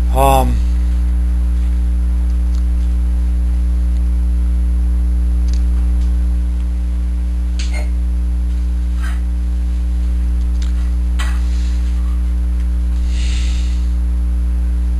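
Steady electrical mains hum with a stack of overtones, the loudest sound throughout. There is a brief pitched sound about a quarter second in and a few faint clicks in the middle.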